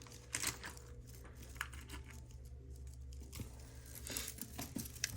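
Costume jewelry being handled: small scattered clicks and rustles as pieces are picked up and moved, with a short lull in the middle and more clicks toward the end.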